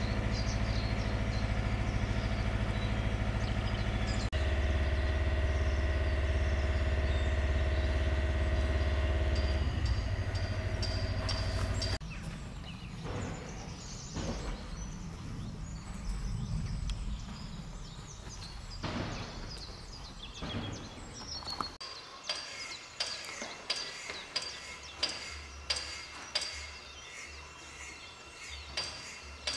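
Diesel shunting locomotive's engine idling with a steady hum, rising in level about four seconds in and easing back near ten seconds. It cuts off about twelve seconds in to quieter outdoor sound with scattered knocks, then repeated sharp taps and bird chirps near the end.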